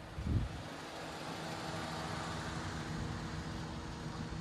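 Outdoor ambience with wind rumbling on the microphone over a faint steady low hum, and a short low thump about half a second in.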